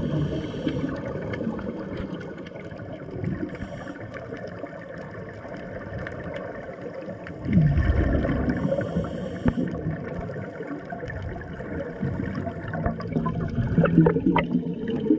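Scuba divers' exhaled bubbles from their regulators, heard through an underwater camera as a bubbling rumble. It swells sharply about halfway through and again near the end.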